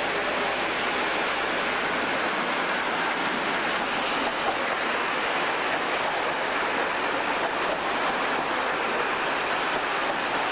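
Class 37 diesel-hauled passenger train rolling along a station platform: a steady, even rushing noise of the coaches going by.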